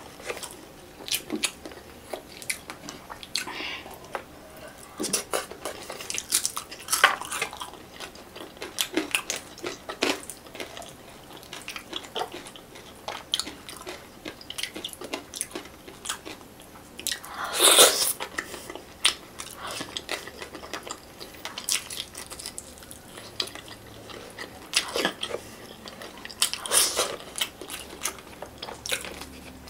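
A person chewing fish close to the microphone: irregular wet mouth clicks and smacks with occasional crunches. A louder burst of eating noise comes about eighteen seconds in, and another near the end.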